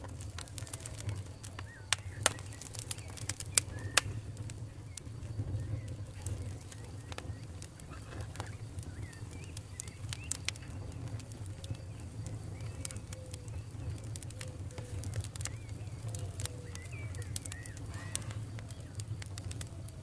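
Wood bonfire burning, with a steady low roar of flame under irregular sharp crackles and pops from the burning branches, the loudest pops about two to four seconds in.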